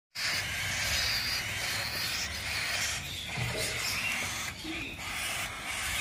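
Baby cockatiel chicks giving continuous hissing begging calls, the food-begging noise of unweaned nestlings.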